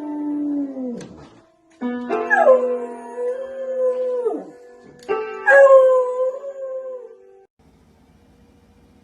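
Dog howling along with piano or keyboard notes. One long howl trails off and drops about a second in, then two more howls each slide up, hold and fall away, and everything stops near the end.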